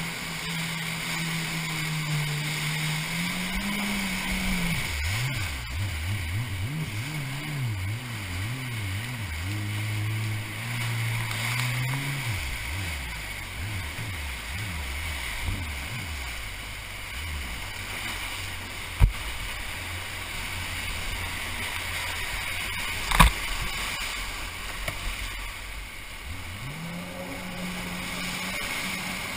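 Kawasaki rescue watercraft (jet ski) engine being throttled through whitewater rapids over the rush of the river. The engine pitch climbs, then rises and falls rapidly for several seconds as the throttle is worked, drops away around the middle and climbs again near the end. Two sharp knocks stand out, the louder one later.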